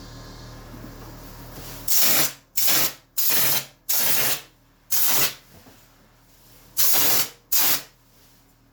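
Ceiling texture being sprayed in seven short hissing bursts, starting about two seconds in, with a longer pause before the last two.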